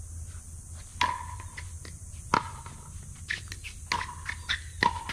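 Pickleball paddles striking a plastic pickleball in a rally: four sharp pops, each with a short ringing tone, about a second to a second and a half apart, with fainter taps between them.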